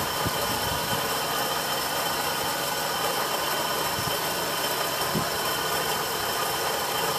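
Grote twin-sealed rotating beacon running: its motor gives a steady whirring hum with a faint whine.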